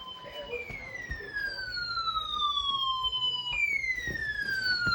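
Flash flood emergency alert tone: a siren-like tone that falls in pitch over about three seconds and repeats, with a new sweep starting about half a second in and another about three and a half seconds in.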